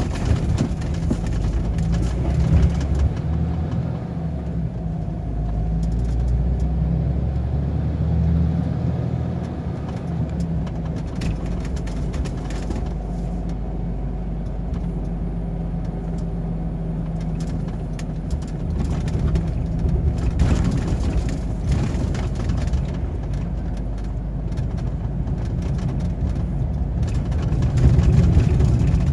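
Truck engine running steadily under way, with tyre and road noise, its low drone shifting slightly in pitch as speed changes.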